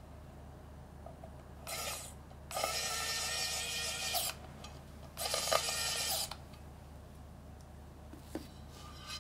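Small electric precision screwdriver driving a screw into a mount block on a metal keyboard case. It runs in three short spurts, the longest nearly two seconds, with a steady motor whine over the grinding of the bit. A couple of light clicks follow near the end.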